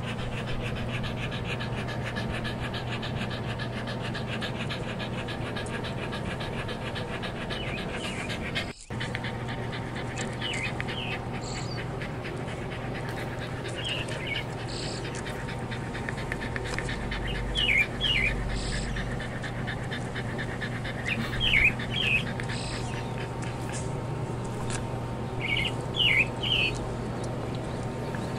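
A dog panting close to the microphone in quick, steady breaths, while a small bird chirps in short groups of two or three notes about five times; the chirps are the loudest sounds.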